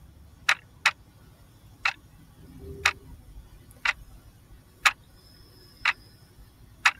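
Clock-tick sound effect ticking about once a second, a quiz countdown timer running while the answer is awaited.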